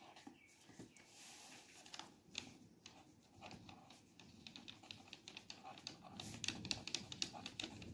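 Pencil writing on lined paper on a clipboard: faint, quick scratching strokes that grow denser and a little louder about six seconds in.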